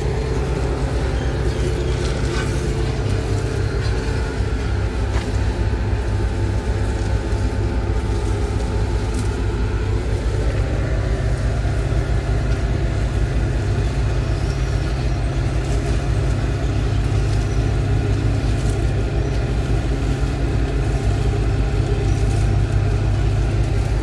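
A large engine running steadily with a low rumble, with asphalt rakes scraping through loose hot-mix asphalt.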